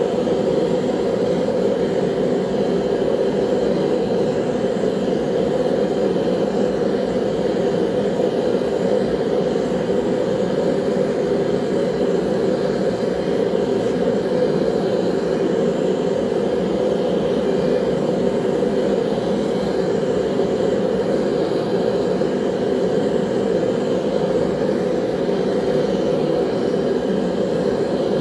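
Gas burner of a single-burner fire brick forge running at full heat: a steady, unbroken rushing flame noise with a deep, even hum, as knife blades heat inside for annealing.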